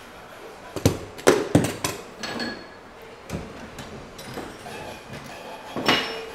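Metal clanking at a bench pipe vice as a pipe is handled and clamped: a quick run of sharp clanks about a second in, another knock past three seconds, and a louder clank with a short metallic ring near the end.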